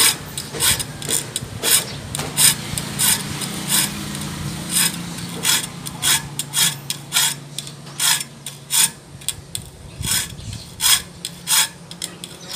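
A hand file being stroked across the teeth of a handsaw, sharpening it: short file strokes repeated about two to three times a second.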